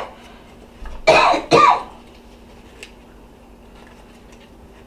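A person coughs twice in quick succession about a second in. The rest is low room noise with a faint steady hum.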